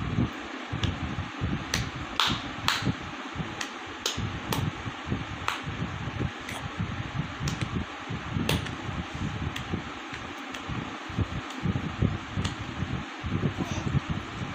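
Steady rushing noise, like a running fan, with about a dozen short sharp clicks at irregular intervals.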